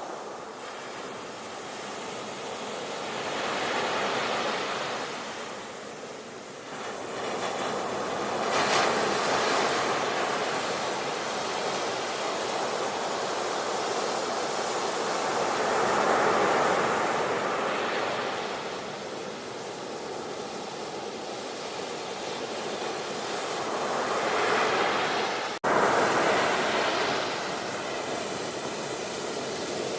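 Sea waves washing onto a shore in a steady rush that swells and recedes every several seconds. A brief dropout in the sound comes near the end.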